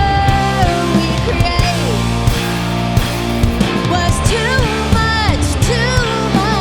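Live punk/indie rock band playing: distorted electric guitars, bass and drums at a steady beat, with a sung vocal line over them.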